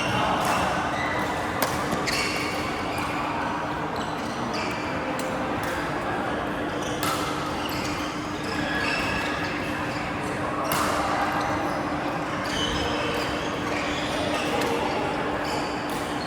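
Badminton being played on an indoor court: sharp racket strikes on the shuttlecock at irregular intervals, mixed with short high squeaks of court shoes, over a steady low hum.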